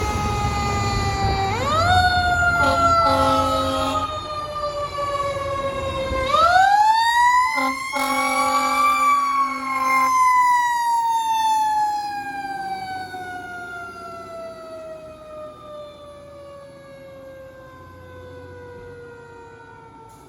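A fire truck's siren winds up twice, briefly about a second and a half in and again more fully about six seconds in, then slowly falls in pitch over the last ten seconds. Two runs of broken air-horn blasts sound over it, and a low truck-engine rumble runs under the first part.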